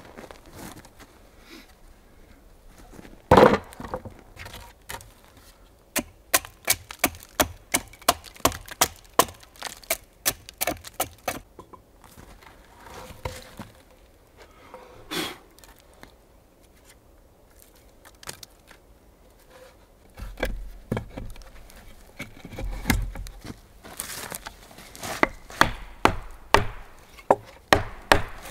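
Axe and hatchet work on split wood: one heavy blow a few seconds in, then runs of quick, light hatchet strokes, about two or three a second, hewing a freshly split board.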